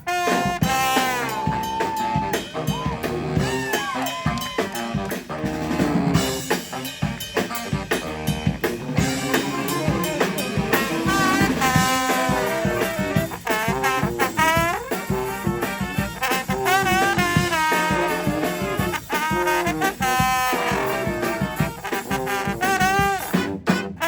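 Live street brass band playing an instrumental tune: horns with sliding phrases over drums.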